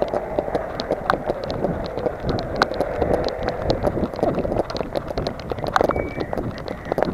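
Running footsteps slapping on wet, rain-soaked paving, a quick run of irregular thuds over a steady hiss of rain.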